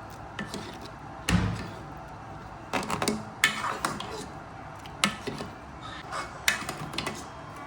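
Kitchen utensils knocking and clinking against a cooking pot, in a handful of separate strikes, the heaviest about a second in.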